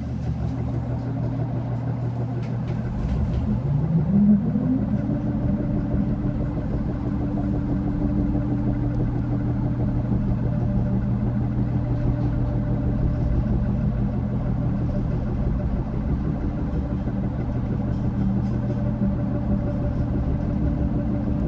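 Electroacoustic drone built from campus soundscape recordings: a low steady hum and rumble, with a tone that glides upward about four seconds in and then holds steady above it.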